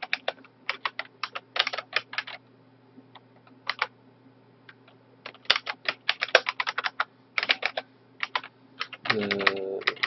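Typing on a computer keyboard: quick runs of keystroke clicks broken by short pauses, over a faint steady hum.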